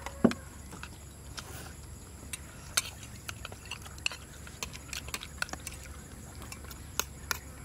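Eating sounds: metal spoons clicking and scraping against ceramic plates, with scattered sharp clicks, the loudest about a quarter of a second in, and a few more near the end.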